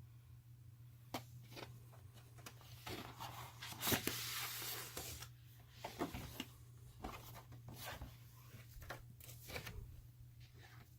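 Paper and cardboard record packaging being handled: scattered faint clicks and short rustles, with one longer sliding rustle about four seconds in, over a steady low hum.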